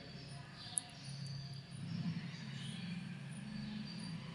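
Quiet background: a faint, uneven low rumble, with a single sharp click a little under a second in.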